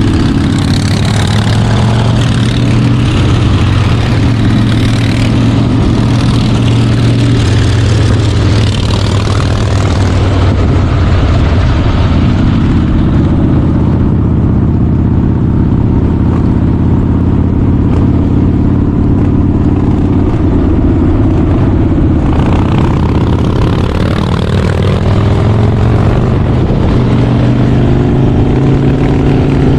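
Harley-Davidson Softail Slim's V-twin engine running on the road. The sound goes duller for a stretch in the middle, then grows sharper again about two-thirds of the way through.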